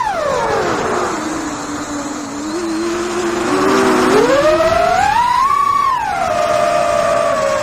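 FPV drone's electric motors and propellers whining heard from on board. The pitch drops sharply at the start as the throttle comes off, climbs again about four seconds in, then falls back near the end.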